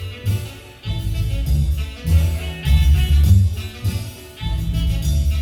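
Marimba band playing, with a strong, rhythmic bass line pulsing under the melody.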